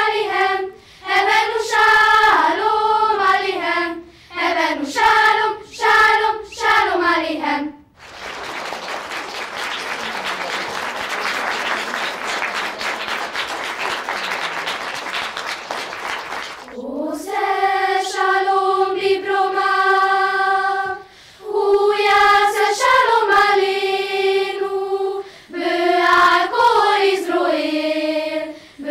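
Children's choir singing in Hebrew, ending its song about eight seconds in; audience applause follows for about nine seconds, then singing starts again with a new song.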